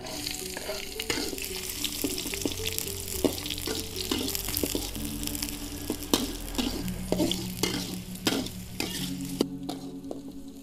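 Chopped shallots, garlic and chillies hitting hot oil in a steel wok and sizzling, with a metal spatula clicking and scraping against the wok as they are stirred. The sizzle starts the moment they go in and thins near the end.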